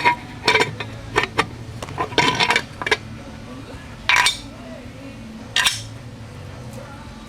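Steel transmission parts and hand tools clinking and clanking against each other: a string of irregular sharp metallic knocks, some ringing briefly, easing off after about six seconds.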